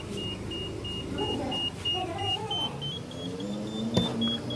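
Car's interior warning chime beeping steadily, about three short high beeps a second, with a sharp click about four seconds in.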